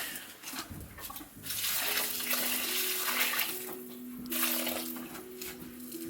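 Water running and pouring in spells from about a second and a half in, with a steady low two-note hum underneath.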